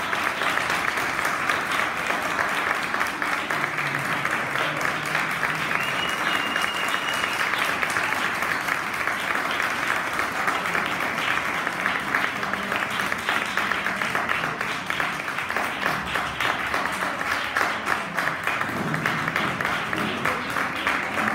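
Audience applauding steadily, many hands clapping, with a brief high tone about six seconds in.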